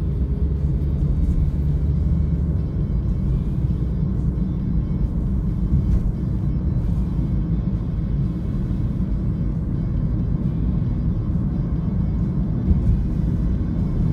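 Steady low road rumble of a car driving, heard from inside the cabin, with music playing along.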